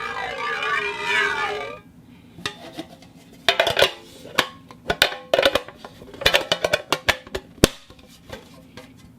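Steel parts of a camera follow focus rubbing and shifting: a wavering metal-on-metal squeal that glides up and down and cuts off just under two seconds in, then a run of sharp metallic clicks and knocks with short bursts of scraping.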